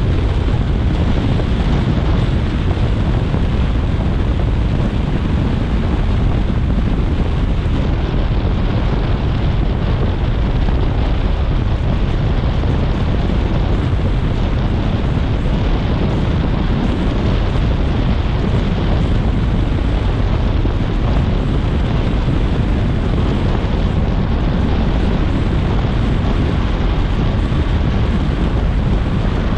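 Steady road noise of a car travelling on a wet expressway, its tyres hissing on the rain-soaked surface, with wind buffeting the microphone into a deep, unbroken rush.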